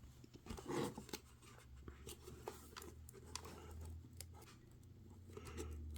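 Faint scattered clicks and rustles of trading-card packaging being handled, over a low steady hum.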